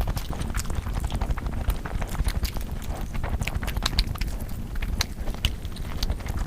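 Close-miked eating sounds: a dense, irregular run of sharp chewing and mouth clicks over a low rumble.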